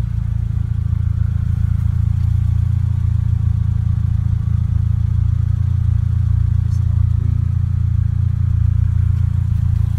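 Toyota Celica GTS's 1.8-litre four-cylinder engine idling through an Invidia cat-back exhaust: a steady, even low rumble.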